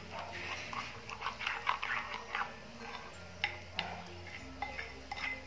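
Plastic spoon stirring a thick gram-flour and rice-flour batter in a glass bowl: irregular soft scrapes and clicks of the spoon against the glass, several a second.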